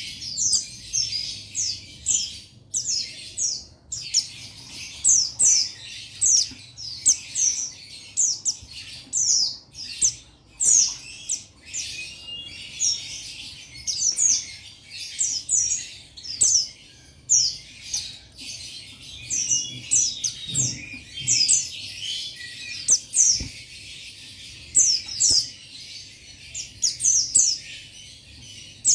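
Buxtoni white-eye (pleci) calling: a rapid, continuing run of thin, high, down-slurred chirps, several a second, broken by brief pauses, with a fainter twittering between them.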